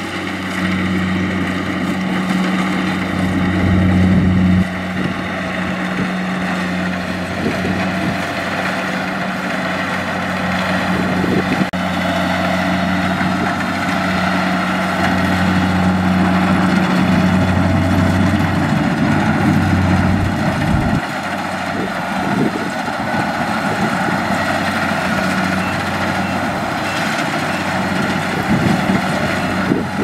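Kubota combine harvester running, its engine and machinery making a loud, steady drone. The low engine hum drops away about two-thirds of the way through, leaving the higher machinery noise.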